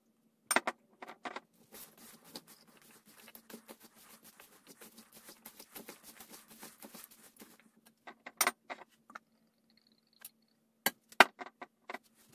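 Bare hands mixing a wet, oily stuffing of chopped vegetables and spices in a plastic mixing bowl, a dense wet crackle lasting several seconds. Sharp knocks come near the start and again in a scattered group near the end.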